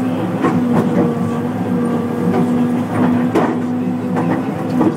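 John Deere excavator running with a steady engine tone, with about seven clanks and knocks spread through it as broken concrete is loaded into a demolition bin.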